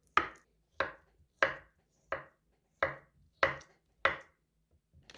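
Knife chopping peeled raw potato into cubes on a wooden cutting board: seven sharp, evenly spaced strikes of the blade through the potato onto the board, about one every two-thirds of a second, stopping just after four seconds in.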